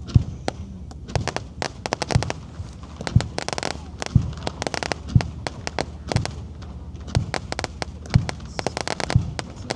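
Aerial fireworks bursting in a steady series, a deep boom about once a second, with crackling between the booms that thickens into a dense patch about three and a half seconds in.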